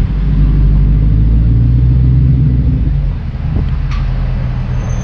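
Straight-piped 2006 Ford GT's supercharged 5.4-litre V8 running at low speed, a low, steady exhaust note that quietens a little about three seconds in.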